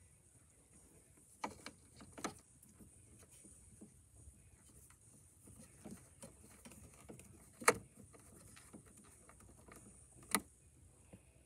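Screws being driven back in by hand with a screwdriver on a generator's frame: faint handling noises and a few sharp clicks of tool and metal, the loudest about two-thirds of the way through. A steady faint high hiss lies underneath.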